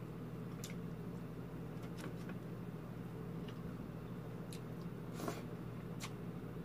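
Close-up mukbang eating sounds: a person chewing milkfish with the mouth, with a handful of short wet smacks and clicks, the loudest about five seconds in, over a steady low hum.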